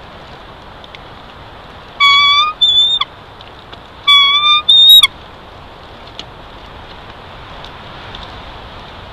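Bald eagle calling twice, about two seconds apart. Each call is a high, slightly rising note of about half a second followed by a short, higher note. A steady hiss runs underneath.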